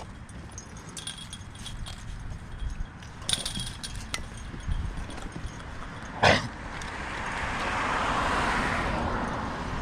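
Scattered light clicks and knocks, one sharp knock about six seconds in, then a rushing noise that swells and fades over about two seconds, as of a vehicle passing.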